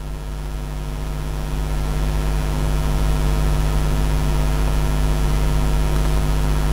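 A steady low hum that builds up in level over the first three seconds and then holds steady.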